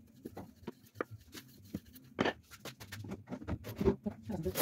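Wooden rolling pin working a large sheet of chapati dough on a stone counter: scattered light clicks and knocks, with a louder knock about two seconds in and more near the end.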